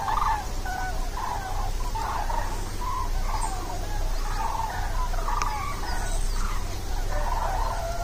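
A large flock of migrating birds flying over in long V-formation lines, many birds calling at once in a continuous chorus of short, overlapping calls.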